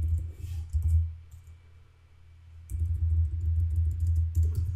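Computer keyboard typing in quick runs of keystroke clicks with a low rumble under them, pausing for about a second and a half near the middle.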